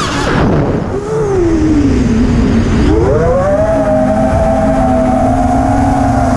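FPV racing quadcopter's T-Motor F60Pro II brushless motors and 5-inch propellers whining, heard from the onboard camera with wind rush. The pitch drops as the throttle is cut at the start and slides lower for about two seconds. About three seconds in it rises sharply and then holds a steady, higher whine.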